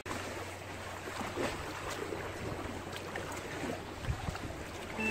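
Steady wash of wind and sea, with a few faint clicks.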